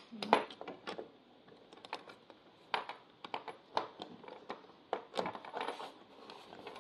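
Scattered light metallic clicks and taps from braided faucet hoses and their fittings being handled against a chrome faucet body and sink.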